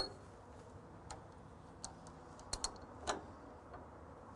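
Faint metal clicks and light knocks from a wood lathe's tool rest being fitted into its holder and not lining up: one sharp click at the start, then about half a dozen smaller ones spread over the next few seconds.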